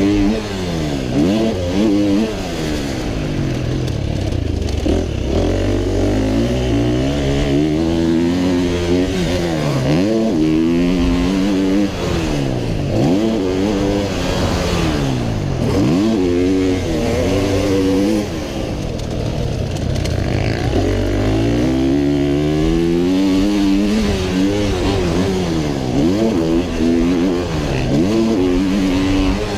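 125cc two-stroke motocross bike's engine revving up and down as the rider works the throttle around the track, its pitch climbing and then dropping sharply again and again.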